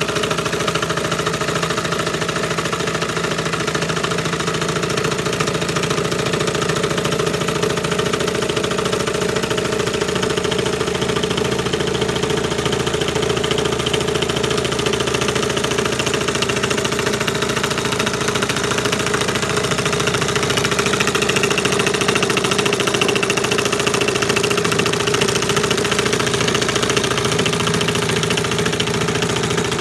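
Homemade belt-driven table jigsaw running steadily with no cut: its motor and pulley drive give a constant hum with a strong steady tone.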